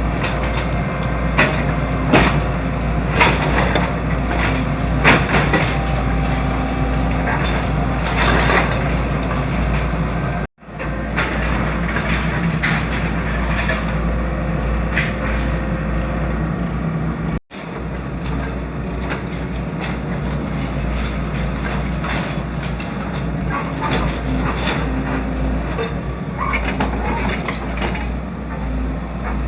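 Excavator's diesel engine running steadily, with repeated knocks and crunches of concrete and debris being broken and moved during demolition. The sound cuts out abruptly twice.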